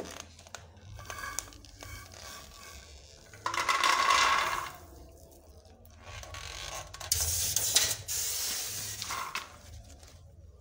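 Dry-roasted groundnuts rattling and sliding in a metal pot as it is lifted and tipped, in two main bursts of about a second each, with smaller clinks and scrapes of the pot.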